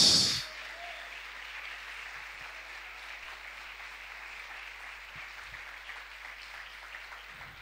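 A congregation applauding: steady, moderate clapping that slowly dies away near the end.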